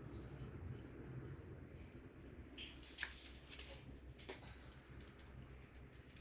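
Faint clicks and light rattles from small parts and hand tools being handled over a low steady hum, with one sharper click about three seconds in.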